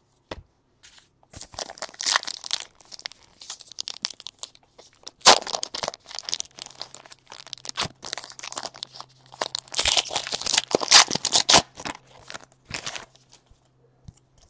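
Crinkling and tearing of a Panini Chronicles baseball card pack wrapper being ripped open and handled, in irregular crackling bursts that are loudest about five seconds in and again around ten to eleven seconds.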